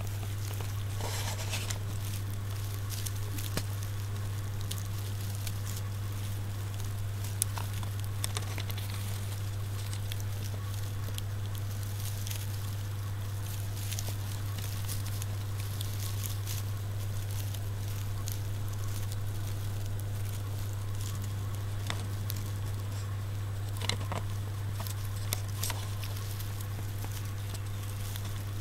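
Kittens scrabbling and moving about, making light pattering, scratching and tapping sounds, over a steady low hum.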